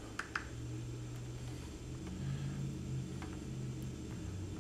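Two quick clicks of the push buttons on a Milwaukee M18 RADIUS compact site light being pressed to change mode, then a fainter single click about three seconds in, over a low steady hum.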